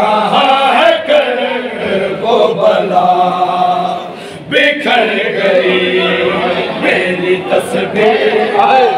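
A Shia noha chanted by a group of men, unaccompanied, led by a solo reciter. The voices dip briefly about four seconds in and then come back in strongly.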